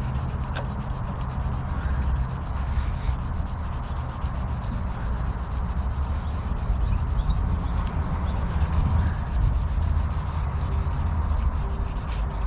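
Hand sanding an oxidized plastic headlight lens with 2000-grit sandpaper on a foam disc holder: continuous scratchy rubbing as the pad is worked back and forth over the lens.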